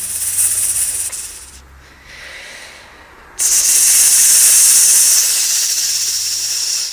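A man imitating a snake's hiss with his mouth, blowing air between his tongue and palate while moving his tongue very fast. One hiss dies away about a second and a half in, and a second, louder hiss starts suddenly about halfway through and is held until near the end.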